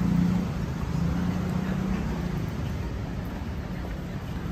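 Street noise with the steady low hum of a vehicle engine running.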